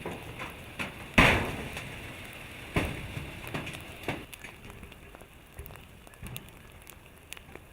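Lava flow burning through pasture, with irregular crackling and sharp pops. The loudest pop comes about a second in and another near three seconds, and the crackle fades towards the end.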